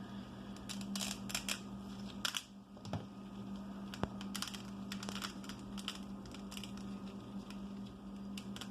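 Scattered light clicks and rustles of small hard objects being handled, over a steady low hum.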